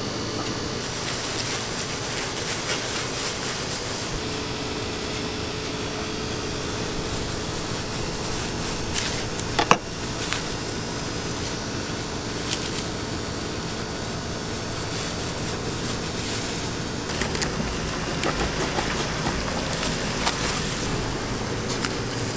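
Steady machine hum and hiss, with scattered handling noises and one sharp click about ten seconds in.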